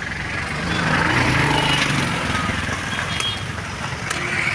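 Street traffic passing, a motor-vehicle rumble that swells about a second in and then eases, with a couple of sharp knocks near the end from a heavy knife chopping palmyra fruit (ice apples).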